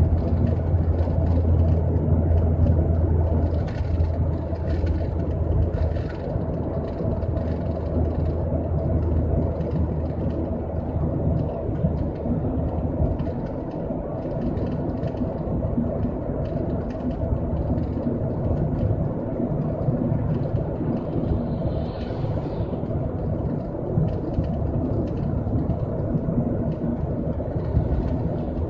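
Steady road and engine noise heard inside a moving Ford Fiesta ST's cabin, with a low drone that eases off about halfway through.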